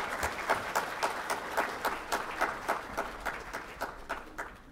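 Audience applauding, a dense patter of hand claps that thins and dies away toward the end.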